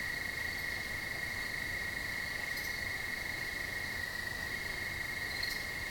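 A chorus of crickets chirping as one steady, unbroken high-pitched trill.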